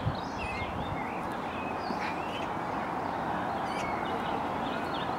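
Outdoor ambience of scattered short bird chirps and twitters over a steady background noise.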